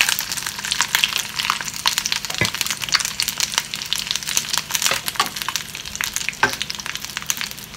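Dried guajillo and chile de árbol chiles frying in hot oil in a stainless-steel skillet, giving a steady crackling sizzle, while a wooden spoon stirs them around the pan.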